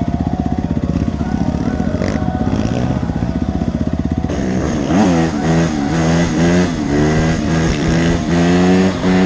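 Dirt bike engine running with a fast, even beat, then revving up and down repeatedly from about halfway through as the bike accelerates.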